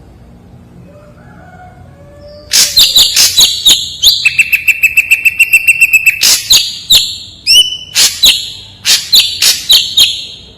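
Ashy drongo singing: faint scattered notes, then about two and a half seconds in a loud run of rapid, sharp notes. In the middle comes one long held whistle lasting about two seconds, and more sharp notes follow until near the end.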